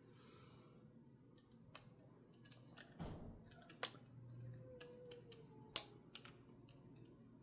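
Scattered small clicks and taps of hard plastic parts and screws being handled and fitted together: a dull knock about three seconds in, then three sharper clicks in the second half.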